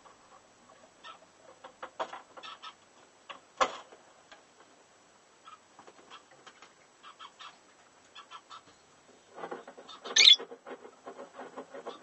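Fischer's lovebird scratching and shuffling in the wood-shaving bedding of its nest box: scattered dry clicks and rustles, with a sharp louder sound about ten seconds in and denser rustling near the end as the bird turns around.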